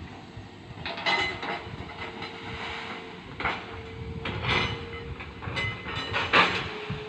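Hitachi ZX 200 hydraulic excavator running with a steady whine, broken by several sudden loud noisy bursts, the loudest near the end.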